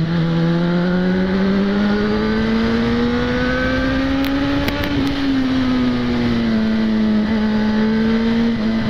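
Yamaha XJ6's inline-four engine pulling under throttle, its pitch rising smoothly for about five seconds, then easing off and holding steady, over constant wind and road noise.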